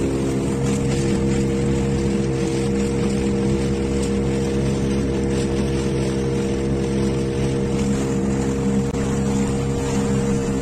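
Motorboat engine running steadily while cruising across a lake, with a constant rush of water and wind over it.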